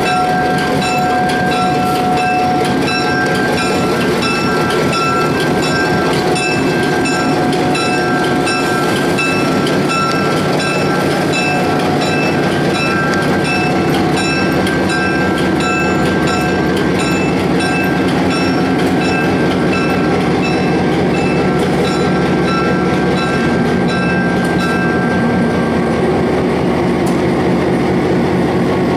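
EMD F-unit diesel locomotive and train running, with a low rumble under a steady ringing that repeats about twice a second. The ringing fades out near the end.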